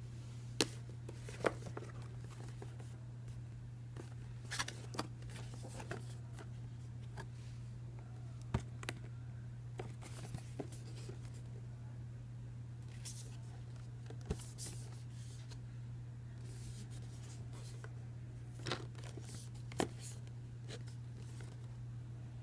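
A cardboard toy-drone box with a clear plastic window being handled and turned in the hands: scattered clicks, taps and light rustles, over a steady low hum.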